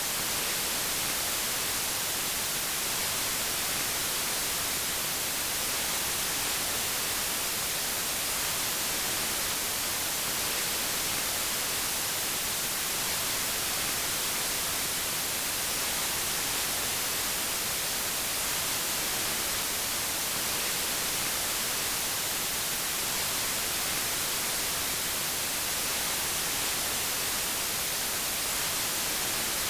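Steady white noise: an even, unbroken hiss, brightest in the high end, that does not change.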